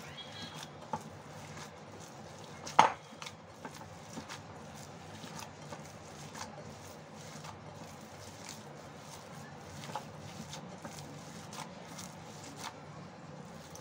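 Hands kneading raw minced meat (keema) with spices in a glass bowl: soft squishing with frequent small clicks and taps. One sharper knock about three seconds in stands out above the rest.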